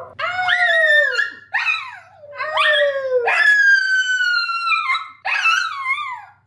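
A small dog howling: about five drawn-out, wavering howls, the longest sliding slowly down in pitch. A woman howls along with it at the start, prompting the dog to howl.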